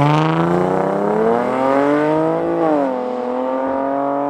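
A street-race car launching from a standing start, its engine revving up hard through the first gear. There is a quick upshift about two and a half seconds in, where the pitch drops, and then it pulls again.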